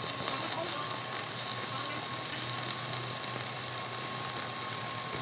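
Stick (MMA) welding arc: a rod electrode burning on steel, fed by a Benz Werkz 160 A inverter welder, giving a steady hiss.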